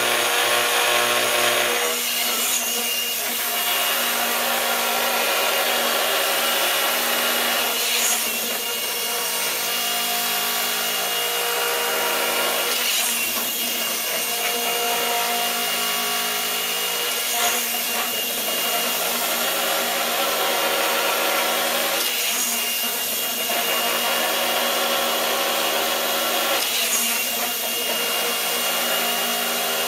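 Gyroscopic inertial thruster running: a steady mechanical whir with fixed tones. About every five seconds a louder patch of whirring lasts roughly a second as the machine runs a thrust cycle, once per pendulum swing at the far end.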